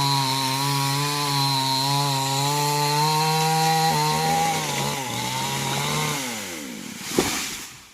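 Chainsaw running steadily at speed, then its engine note falls away as it winds down about six seconds in. A single sharp impact follows near the end.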